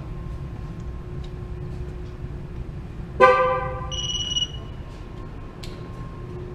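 A single vehicle horn toot about three seconds in, dying away over about a second, with a short high electronic beep just after it.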